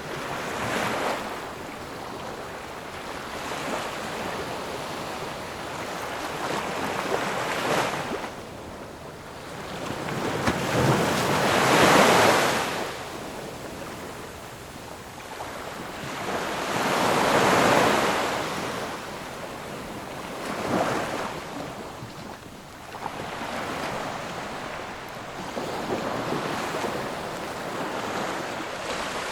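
Ocean surf: waves breaking and washing in, each one swelling up and fading away every few seconds, the two loudest about twelve and eighteen seconds in.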